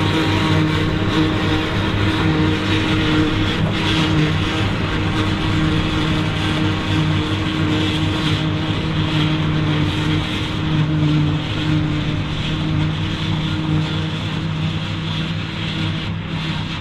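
Ford TW20 tractor's six-cylinder turbo diesel running steadily under load as it drives a Taarup forage harvester. The harvester's cutter and blower whir continuously as they chop grass and blow it out of the spout.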